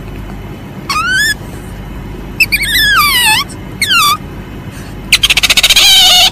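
Asian palm civet calling: a short high-pitched call rising in pitch about a second in, then two calls falling in pitch, one long and one short. Near the end comes a rapid chattering run of pulses, all over a steady background hiss.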